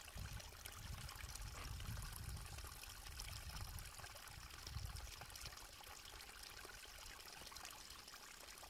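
Faint, steady murmuring of a small mountain stream flowing beneath thick snow cover, heard through an opening in the snow.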